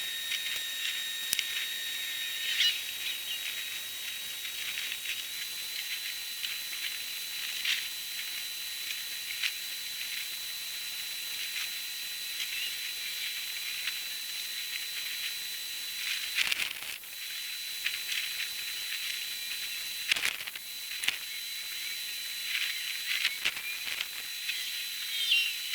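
Outdoor ambient sound sped up thirty times in a time-lapse, so that it is all shifted high: a hiss full of chirps and clicks with a thin steady whistle over it, and a few sharp cracks past the middle.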